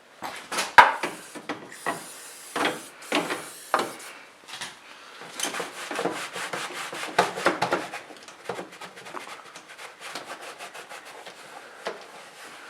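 A car's empty battery tray being scrubbed clean: repeated rubbing, scraping strokes, spaced apart at first and then coming quickly for a few seconds in the middle.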